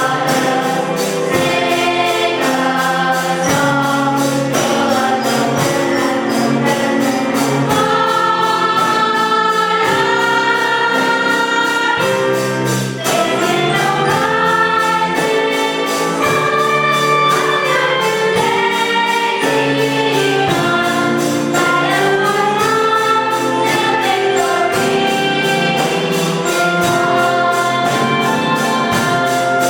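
A choir singing a gospel-style song with instrumental accompaniment and a steady percussion beat.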